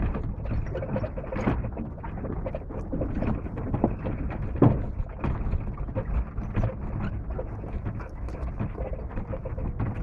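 Vehicle moving slowly over rough bush ground, heard from inside: a steady low rumble with frequent knocks and rattles, the loudest knock about halfway through.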